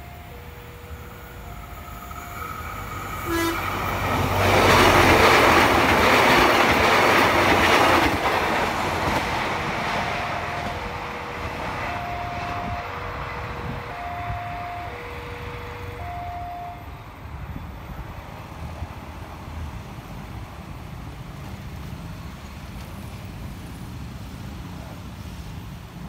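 A train passing close at speed. A short horn blast comes about three seconds in, then the loud rush of the passing train, which fades slowly over the following seconds. A two-note alternating chime repeats near the start and again in the middle.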